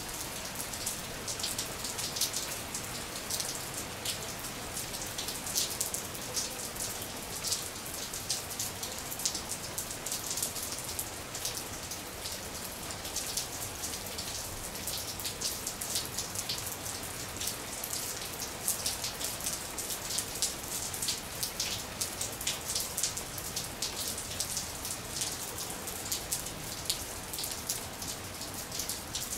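Steady rain-like patter: an even hiss dotted with many small, irregular ticks.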